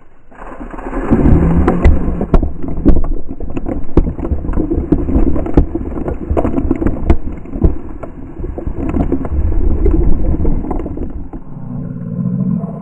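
A large load of ice water dumped from a container on the roof, pouring and splashing down onto a seated man and onto the camera close below him, with drops pelting the camera in many sharp patters. The pour starts abruptly and thins out near the end.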